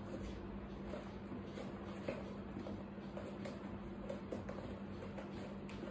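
A few faint, scattered clicks and rubbing from a charcoal filter being pressed into the slot in a plastic litter box dome lid, over a steady low hum.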